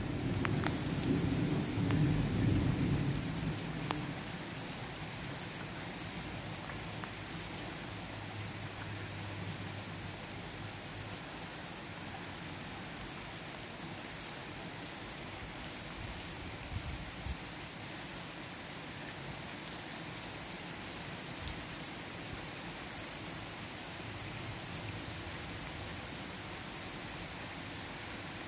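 A rumble of thunder dying away over the first few seconds, then steady rain falling, with scattered sharp drops ticking close by.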